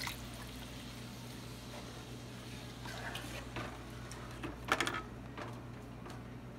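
Water poured from a plastic container into a pot of hot oil and seasoning, hissing at first and dying away within about half a second. After that there is only a faint steady low hum and a few light knocks, the loudest cluster nearly five seconds in.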